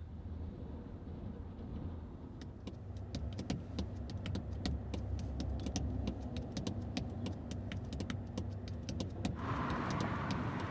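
Car with its engine running, a low steady rumble, with many sharp irregular clicks and rattles. A rush of hiss comes in abruptly near the end.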